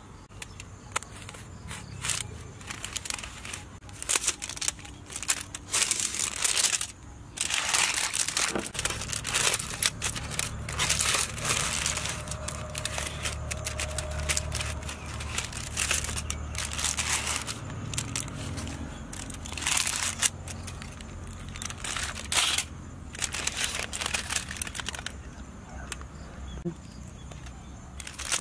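Aluminium foil crinkling and crackling in irregular bursts, with short pauses, as a foil-wrapped parcel is handled and unwrapped by hand.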